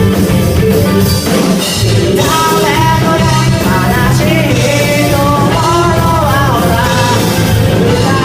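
Loud rock music with a singing voice over a full band.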